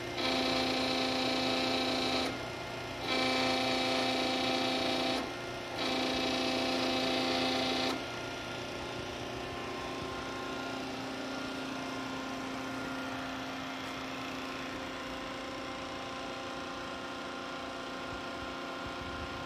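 Hydraulic power unit (electric motor and pump) running with a steady hum, rising three times to a louder whine of about two seconds each in the first eight seconds, as it drives a rebuilt Howa HH36C-8 hydraulic rotary actuator under test.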